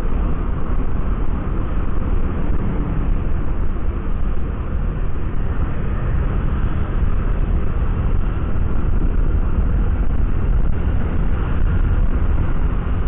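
Steady wind rumble on the microphone of a moving Honda Vario 125 scooter, with the scooter's single-cylinder four-stroke engine running underneath while cruising.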